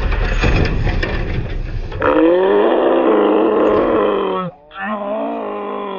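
A loud rough rumble, then a man's long drawn-out excited holler in two parts with a brief break; the second part trails off, falling in pitch.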